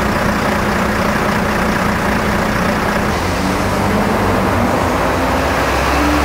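Road traffic at a city intersection: car engines running steadily, with an engine note climbing steadily in pitch over the second half as a vehicle speeds up.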